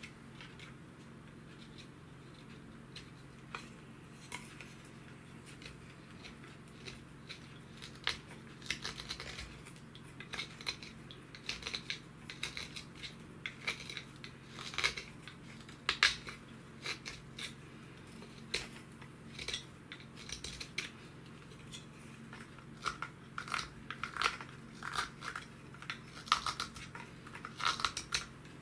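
Knife whittling a wooden spoon by hand: short shaving strokes of the blade on the wood, only a few at first, then coming thick and fast from about eight seconds in. A faint steady low hum sits underneath.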